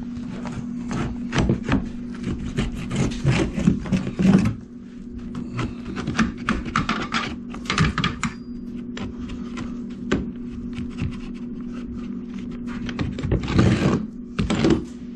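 Carpet being trimmed along the wall edge with a blade: irregular scraping, crackling strokes as it cuts through the carpet backing, in several spells with short pauses between. A steady low hum runs underneath.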